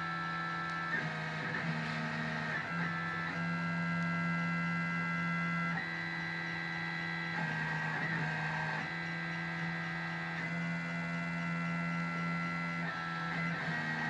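Stepper motors of an Arduino-controlled GRBL CNC machine whining as the axes move, the pitch jumping between steady tones every second or two as each move changes speed or direction.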